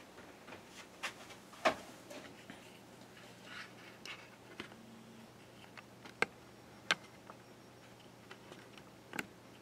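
Scattered sharp clicks and ticks at uneven intervals, a few seconds apart, over a faint steady hum from a Prusa i3 MK3S 3D printer warming up before a print.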